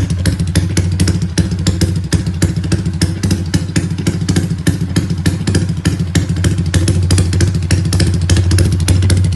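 Modified Yamaha Y15ZR (MX King 150 / Exciter 150) single-cylinder motorcycle engine running through an aftermarket exhaust, a rapid, even stream of exhaust pulses holding steady.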